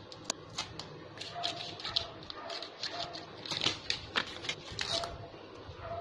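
Scissors snipping the paper wrapping band on a new scooter tyre, followed by paper strips rustling and tearing as they are pulled off the rubber: a run of irregular sharp snips and scratchy rustles.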